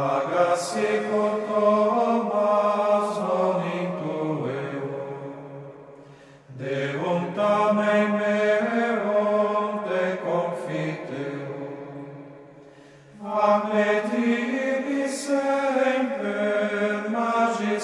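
Slow, chant-like singing of a melody in three phrases, each starting abruptly and fading away.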